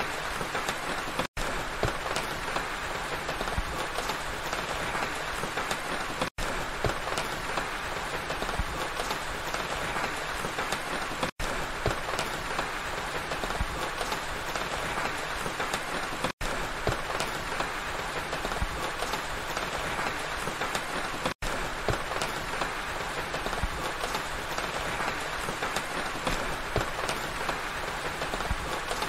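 Steady rain pattering, an even hiss of many fine drops, with no change in strength. It cuts out for an instant about every five seconds, five times.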